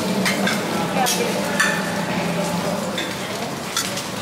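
A serving spoon scraping and clinking against a metal buffet tray as food is dished up. Underneath are a steady hiss and the murmur of diners.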